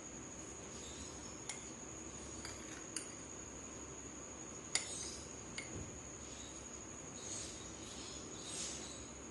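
Metal spoon clinking lightly against glass bowls as mango cubes are scooped and set onto rabri, a few separate clinks with the sharpest about five seconds in. A steady faint high-pitched whine runs underneath.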